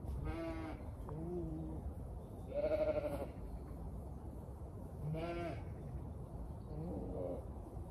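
Zwartbles sheep bleating: five separate calls, the loudest about two and a half seconds in.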